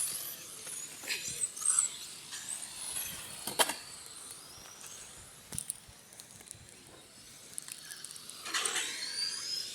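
Remote-control cars racing on a track, their motors giving a faint high whine that rises and falls as they pass, with a couple of sharp clicks in between.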